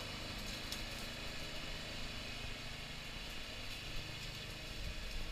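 Radio-controlled lawn mower's engine running steadily as the mower drives across the lawn.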